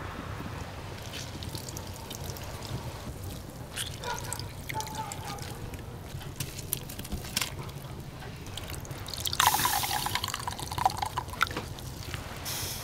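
Liquid pouring and dripping, with scattered light clicks and knocks; the pouring is loudest for a second or two about nine to eleven seconds in.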